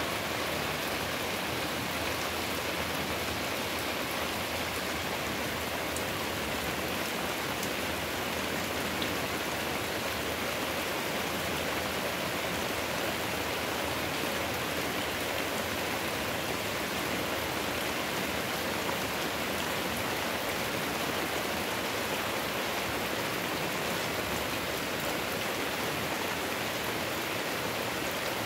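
Heavy rain pouring steadily onto clay-tile and corrugated-sheet roofs, with water streaming off the eaves: a dense, even hiss that never lets up.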